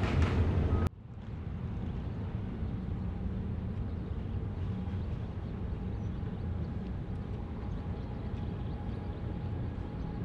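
Boeing 777F freighter's jet engines giving a steady low rumble, with a faint steady whine above it. About a second in, a louder jet roar cuts off abruptly.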